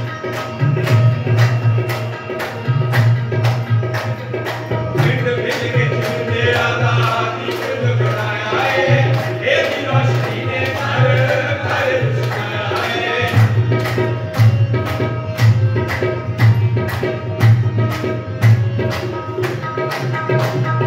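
Live qawwali: harmonium and tabla playing a steady rhythm, with the group clapping along at about two claps a second. Voices sing for several seconds in the middle.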